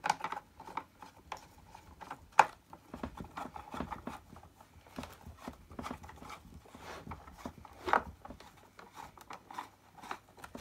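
Hand screwdriver turning a large screw into the plastic housing of an Electrolux 502 upright vacuum, with irregular small clicks, scrapes and knocks of plastic parts being handled; one sharp knock about two and a half seconds in.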